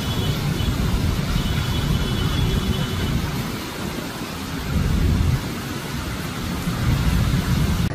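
Heavy rainstorm: a steady rush of downpour over a deep rumble that swells and eases, as of strong wind or thunder.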